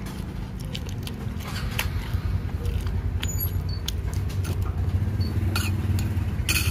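A motor vehicle's engine running close by and growing gradually louder, with scattered light clicks and clatter over it.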